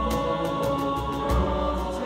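Choir of male voices singing sustained chords, backed by piano and a cajón tapping out a steady beat.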